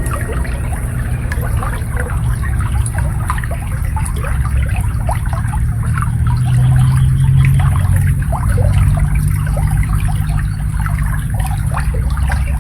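Shallow water babbling and trickling in a steady, busy patter, with a deep, steady rumble underneath.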